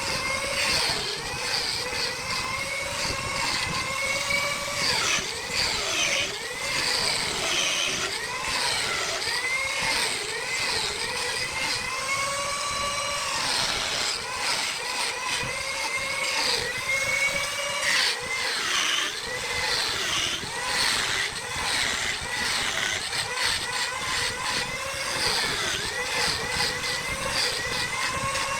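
Wood lathe running with a tool cutting the spinning wood: a motor whine that keeps dipping and recovering in pitch, over a scraping hiss.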